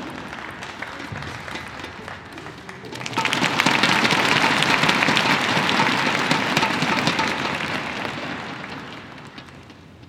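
Crowd applauding: the clapping swells suddenly about three seconds in and fades away near the end.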